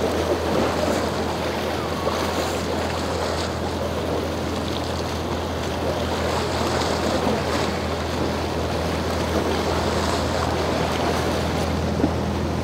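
Motorboat engines running with a steady low drone while waves wash and churn around them.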